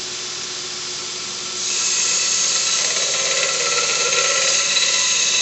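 Homemade 2x42 belt sander, a converted Grizzly 87760 combo grinder running on skateboard-wheel rollers, running with a steady whine. About one and a half seconds in, metal is pressed to the belt and the sound grows louder, with a bright, high grinding hiss as the steel is ground away.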